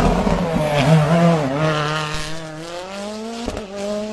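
Rally car engine through a hairpin: the pitch drops as it slows for the bend, then climbs steadily as it accelerates away. A sharp crack comes about three and a half seconds in.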